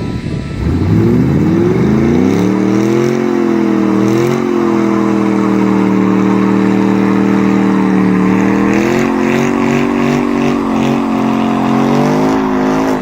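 Car engine accelerating hard: the revs climb over the first few seconds, dip briefly, then hold steady and high, with a pulsing note near the end before falling away.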